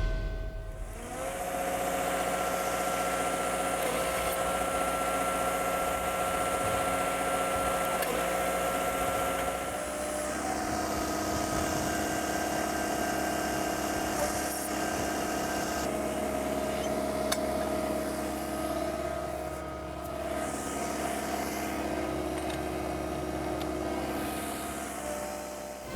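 Geoprobe direct-push probe machine running, its engine and hydraulics working the clamp and rods, with a steady hum and whine that shifts in pitch twice.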